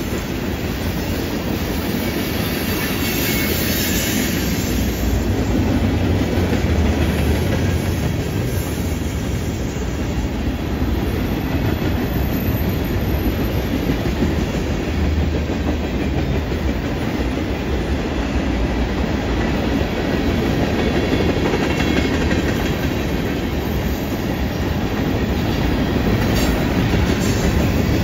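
Freight train cars (tank cars, covered hoppers, a boxcar) rolling steadily past: a continuous rumble of steel wheels on the rails, loudest in the low range, gently swelling and easing as the cars go by.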